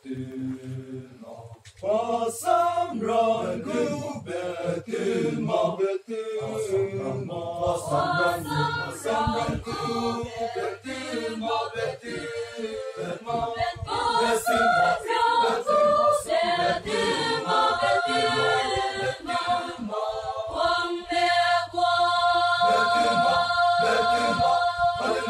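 Mixed choir of men and women singing in parts without accompaniment, coming in about two seconds in and ending on long held chords near the end.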